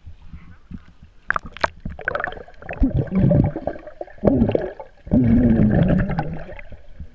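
Muffled underwater sound heard through a submerged camera: gurgling bubbles and water movement, with a few sharp clicks early on, then dense low rumbling with wavering low tones that swells twice and fades near the end.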